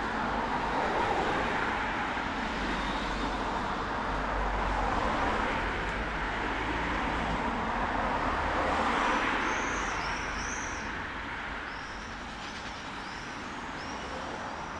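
Road traffic passing on a rain-wet city street, tyres hissing, swelling as vehicles go by about a second in and again around nine seconds. A small bird chirps repeatedly through the second half.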